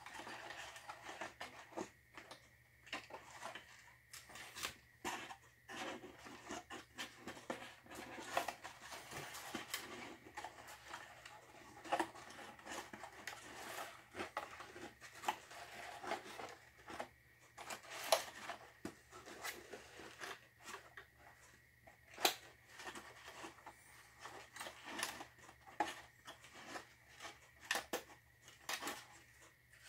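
Faint, irregular light clicks, taps and rustles of fingers handling thin wires and small LED lamps inside a wooden model-building roof frame.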